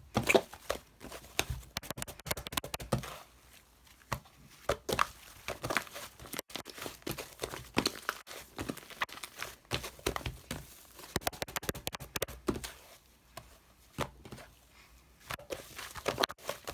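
Irregular crinkling, scratching and tapping sounds, as of something being handled close up.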